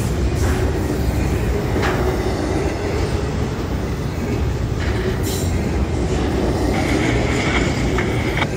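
Double-stack intermodal freight train rolling past, loud: a steady rumble of steel wheels on the rails with a few sharp clicks, and a thin, steady high squeal for about a second and a half near the end.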